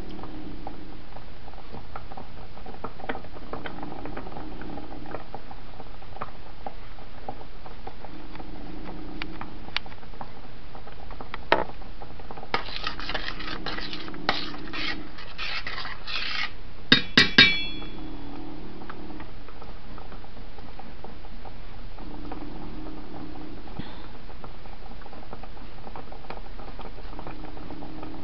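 A spoon stirring and scraping through thick sauce in a stainless steel saucepan, followed about 17 seconds in by three quick taps of the spoon on the pot that ring briefly. Under it the sauce bubbles gently, with soft low plops every couple of seconds.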